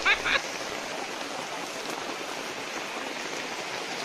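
Steady hiss of rain falling on a rocky river, blended with the rush of the river water running over rocks.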